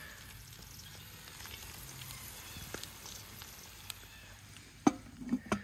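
Campfire coals around a spun steel camp oven, faintly crackling and sizzling, with scattered small ticks. A few sharp knocks come near the end.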